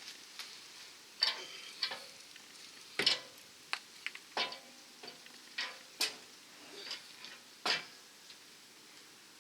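Irregular metal clanks, knocks and scrapes as a steel rear bumper is worked into place on a pickup's frame, about a dozen short sharp hits spread unevenly, a few ringing briefly.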